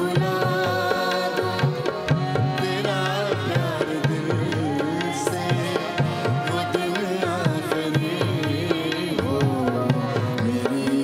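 Harmonium and tabla playing the accompaniment to an Urdu light-classical song, with a singing voice winding over the held harmonium chords in places.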